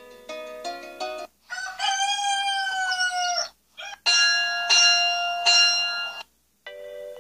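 A phone alarm-clock app's bell sounds playing one after another. A quick electronic jingle of short notes comes first, then a recorded rooster crow of about two seconds that falls in pitch at the end. A ringing alert tone follows, sounding three times, and another short jingle begins near the end.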